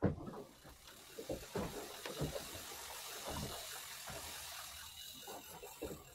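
Sea water sloshing against a small fishing boat's hull, with a steady hiss and irregular low knocks.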